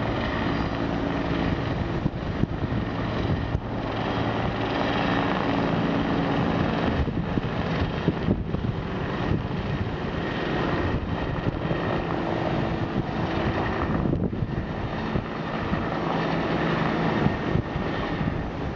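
A steady engine drone with a low hum and a wash of noise over it.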